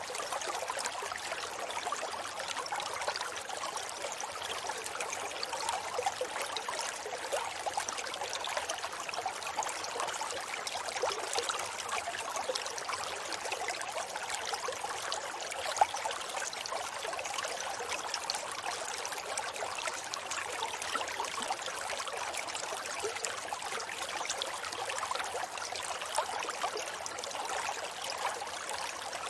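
A river flowing steadily over rocks: even splashing and babbling water, with no pauses or changes.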